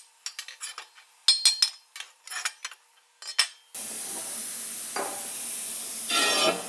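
A quick run of sharp metallic clinks and knocks as the freshly plasma-cut steel center of a car wheel rim is worked loose and handled on a steel table. About four seconds in, a steady hiss takes over, with a brief scraping clatter of metal near the end.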